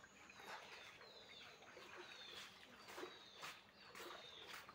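Ducklings peeping: faint, high, short falling calls repeated a few times a second.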